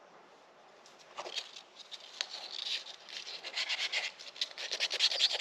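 Sandpaper rubbed by hand over a wooden knife handle: short rasping strokes begin about a second in, scattered at first, then quicken into a fast, even back-and-forth.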